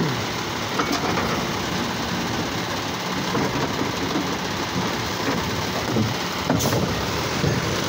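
Automated side-loader garbage truck running steadily while its hydraulic gripper arm lifts a wheeled cart, tips it into the hopper and lowers it again. A sharp metallic clank about six and a half seconds in.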